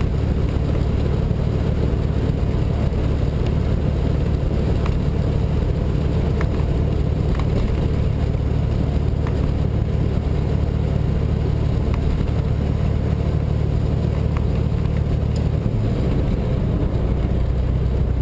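Semi-truck diesel engine and road noise heard inside the cab while cruising at highway speed, a steady low drone. About sixteen seconds in, the engine note steps down in pitch.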